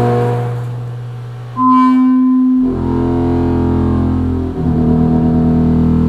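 Waldorf Microwave XT wavetable synthesizer playing sustained low notes that change pitch every second or two, one note fading away before the next begins. From about four and a half seconds in, a new note wobbles quickly in loudness.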